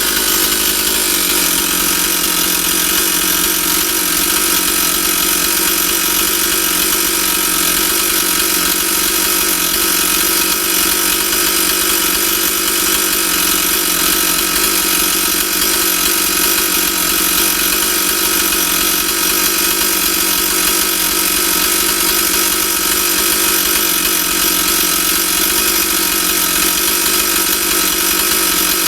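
Stihl 044 chainsaw's two-stroke engine running steadily, with a slight change in its sound in the first second.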